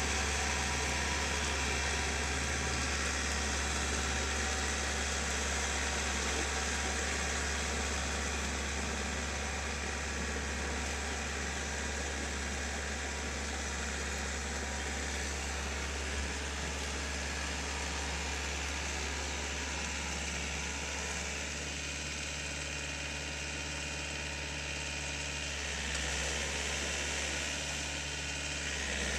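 Farm tractor's engine running steadily as it pulls an implement through a flooded, muddy rice paddy: a continuous low hum, dipping slightly and picking up again near the end.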